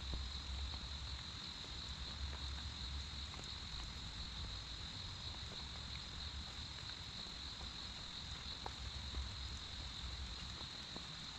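Steady rain falling, with a few scattered drip ticks, a low fluctuating rumble and a constant high-pitched whine over it.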